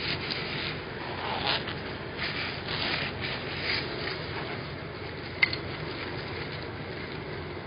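Handling noises as a soprano recorder is taken out of its packaging: intermittent rustling and rubbing, with one sharp click about five seconds in, over a steady low hum.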